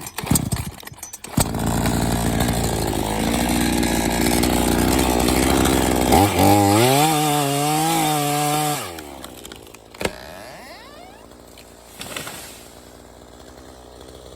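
Chainsaw cutting into a tree trunk; about six seconds in the engine rises to a higher steady note, then drops back to a quieter idle about three seconds later.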